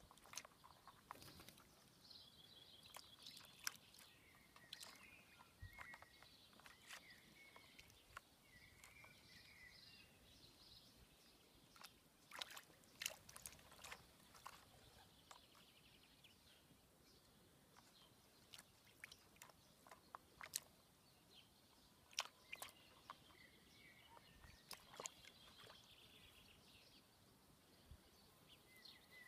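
Young peregrine falcon bathing in a shallow tub of water: scattered short splashes and flicks of water as it dips and ruffles in the bath, coming in clusters about twelve and twenty seconds in. Faint bird calls sound in the background.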